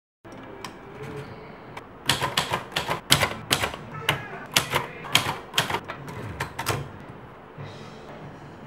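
Manual typebar typewriter typing: an irregular run of about twenty sharp keystrokes, each typebar clacking against the platen, over some five seconds. The run stops about seven seconds in.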